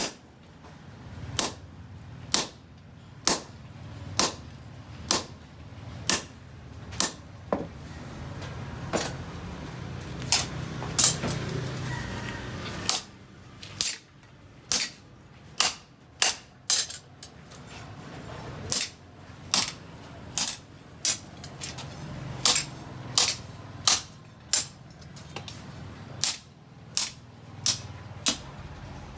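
Hammer blows on steel at an anvil, about one a second with some quick doubles, each a sharp strike with a short ring. A steady low hum runs underneath.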